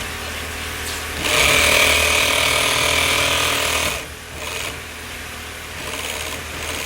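Industrial sewing machine running, stitching tent fabric: a loud fast run starts about a second in and stops after two and a half seconds or so, with quieter machine running before and after.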